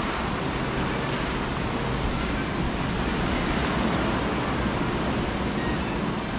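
Rough sea surf breaking, heard as a steady, unbroken rush of noise mixed with wind on the microphone.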